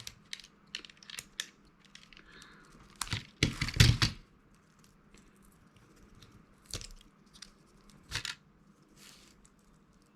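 Plastic clicks, cracks and tearing as the keypad of an old mobile phone is pried and peeled away from its circuit board, which is hard to remove. The loudest cracks come about three to four seconds in, with a few single clicks later.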